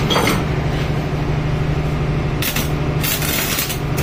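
Electric arc welding on a steel stand: about two and a half seconds in the arc strikes and crackles and sizzles in spurts, over a steady low hum.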